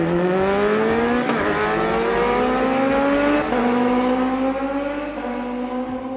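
Sport motorcycle engine accelerating hard through the gears: the note climbs, drops at each upshift (about a second in, midway and near the end), then fades away.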